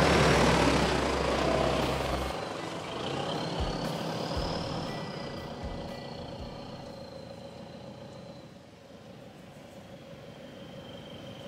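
An SUV drives past close by through tall grass, its engine and tyres loudest in the first second or two and then fading away as it moves off.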